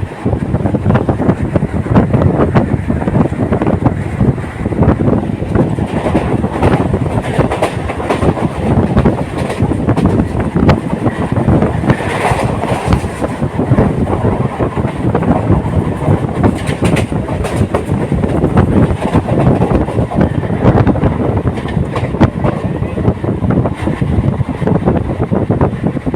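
Local passenger train running along the track, with a steady rumble and the wheels clattering over rail joints in many irregular clicks.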